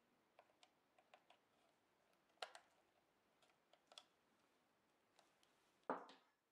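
Light plastic clicks and taps from a power cord and its plug being handled, then a louder knock near the end as the plug is set down on the table.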